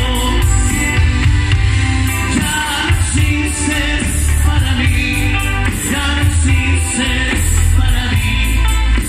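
Grupero band playing live through a PA, with a male lead vocal over electric guitars, bass, drums and Latin percussion.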